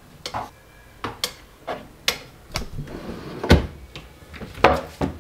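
Knocks and clicks of a wardrobe's white wire pull-out basket and cabinet as clothes are put away: about ten sharp knocks, the loudest about three and a half seconds in and again a second later.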